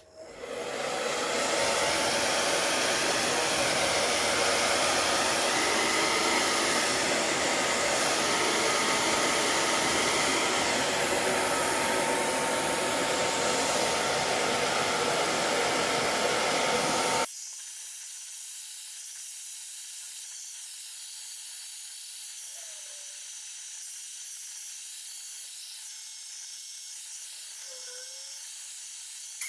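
Handheld electric hair dryer blowing on a wet cat's fur: a loud, steady rushing noise that drops abruptly about 17 seconds in to a much quieter, thinner hiss.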